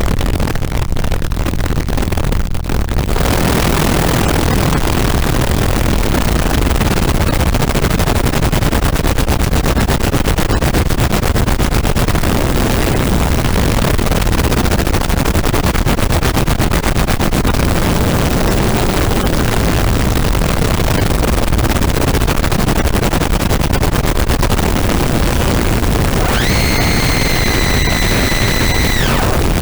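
Caustic FX Snowstorm digital distortion pedal producing a dense white-noise drone with heavy, blown-out bass. About three seconds in the hiss fills out in the highs. Near the end a high steady tone with overtones rides on top for a few seconds, then cuts off.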